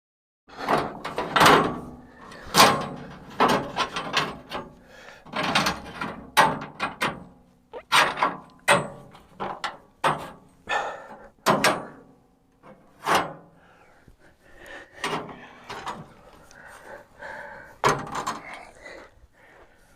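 Irregular series of sharp knocks and thuds, some with a brief ring, softer and closer together from about 14 seconds in.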